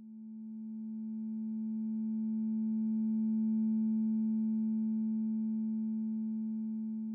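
Computer-synthesised drone from Sonic Pi: a steady chord of pure, sine-like tones, one strong low tone with several fainter ones above it. It swells slowly to its loudest about halfway through, then fades. It is a sonification of the red wines' chloride values, the levels of its tones following the shape of their distribution.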